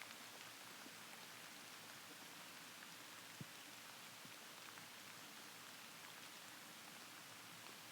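Near silence: faint steady outdoor hiss with a few scattered light ticks and one sharper click about three and a half seconds in.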